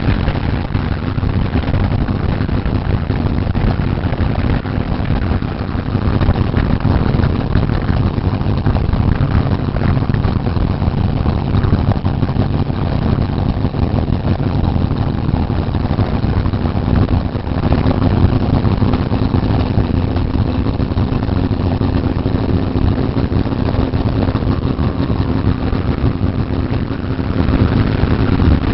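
Sprint car's V8 engine running at a fairly steady speed, heard from a camera mounted on the car, with heavy rumble and vibration noise. The sound gets louder near the end as the engine begins to rev up.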